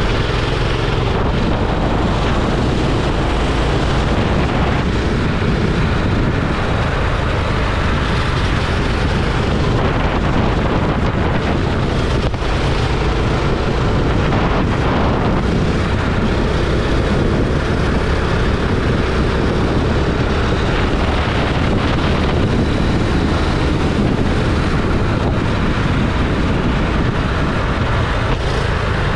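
Kart engine running steadily at racing speed, with wind buffeting the microphone.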